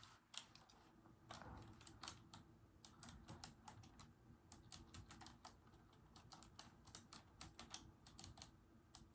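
Quiet typing on a mechanical keyboard: a run of sharp, irregular key clicks.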